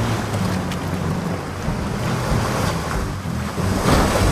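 Sea waves washing and wind rushing, with a low steady hum underneath and a swell near the end.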